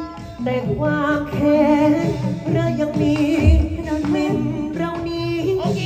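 Likay-style Thai singing: a voice holding long, wavering notes over a band accompaniment, with a heavy low drum beat about halfway through.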